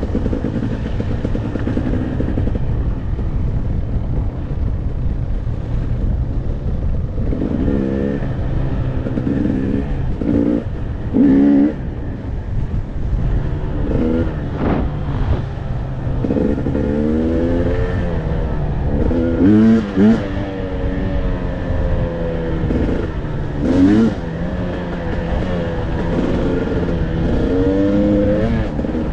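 Dirt bike engine running under load on a trail ride, its revs rising and falling over and over as the rider works the throttle. There are a few brief louder moments, about 11, 20 and 24 seconds in.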